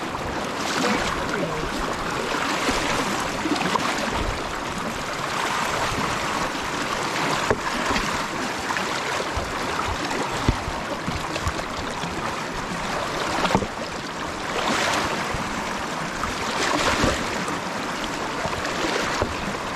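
Legs in waterproof pants wading through knee- to thigh-deep flowing river water: steady rushing and sloshing, with louder splashing surges every couple of seconds at each stride.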